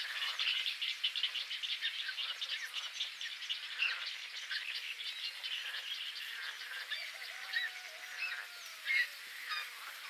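Great egret chicks begging at the nest: a fast run of high ticking calls, about eight a second, for the first three seconds, then scattered calls and a drawn-out lower note near the end.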